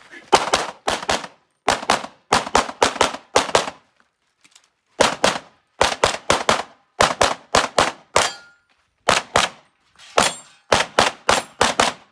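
Rapid gunshots from a shooter running a timed match stage: dozens of sharp shots in quick strings of two to six, with short pauses between the strings.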